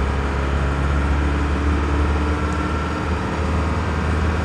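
Ford Transit Carlyle minibus under way, heard from inside the cab: a steady low engine drone with road noise.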